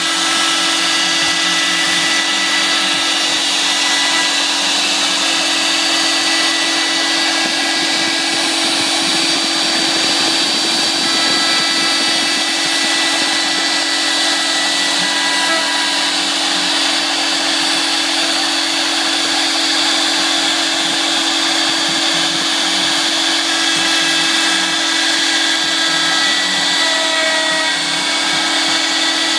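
Home-made CNC router spindle running steadily at speed while its 6 mm ball-nose end mill cuts into a wooden block, a constant motor whine with the cutter chattering through the wood.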